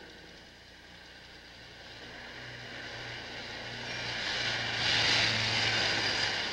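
A car driving past: engine hum and tyre noise build from about two seconds in and are loudest around five seconds.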